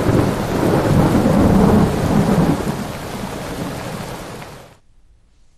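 Thunderstorm: thunder over heavy rain, fading and stopping about three-quarters of the way in.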